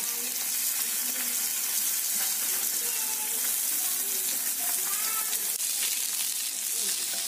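Small whole fish sizzling steadily in hot oil in a black iron pan over a wood fire, with a metal spatula turning them.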